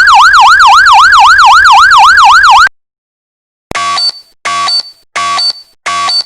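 Electronic warbling siren sound effect, its pitch swinging up and down about five times a second, which cuts off suddenly. About a second later a repeating electronic alert starts: short two-tone beeps, about one and a half a second.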